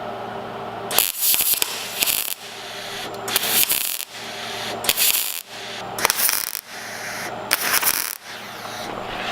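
MIG welder stitch-welding steel body panels: about six short bursts of crackling arc, each roughly half a second long, with brief pauses between.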